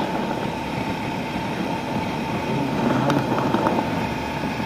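Motorcycle on the move, its engine and wind noise heard through a helmet-mounted camera's microphone, with a steady high tone and a few light clicks a little past halfway.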